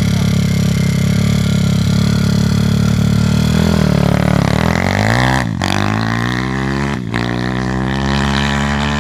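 Zongshen Z160 single-cylinder four-stroke pit bike engine running hard at steady revs, then the pitch shifts and climbs. There are two brief breaks about five and a half and seven seconds in, with the revs rising again after each, as the bike accelerates up through the gears.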